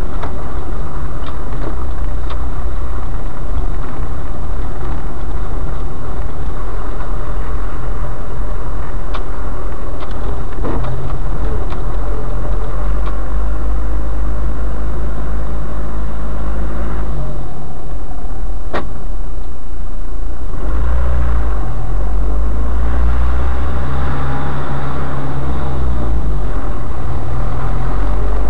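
Engine and running noise of a vehicle driving along a rough dirt track, heard loud from inside the cab, with a steady low rumble and occasional sharp clicks or knocks.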